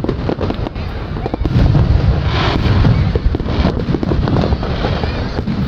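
Fireworks display going off in rapid succession: many overlapping bangs and crackling pops, louder from about a second and a half in.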